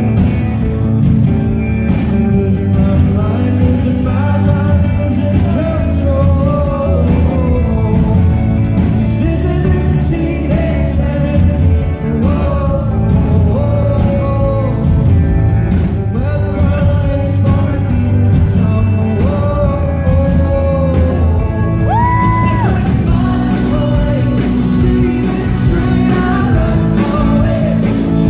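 Live concert performance: a male voice sings over full band accompaniment, heard in a large hall. A long held high note comes about three-quarters of the way through.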